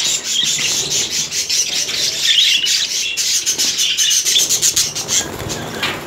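A flock of budgerigars chattering continuously: a dense, raspy warble of many overlapping scratchy chirps and clicks.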